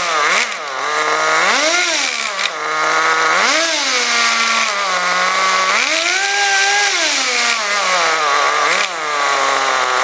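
Kyosho Nitro Blizzard's .11 nitro engine running, revving up and dropping back about five times, with one longer rev held near the middle.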